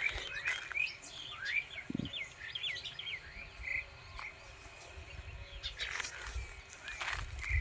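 Forest birds chirping, a quick run of short high notes through the first half. A few footsteps on the forest floor near the end.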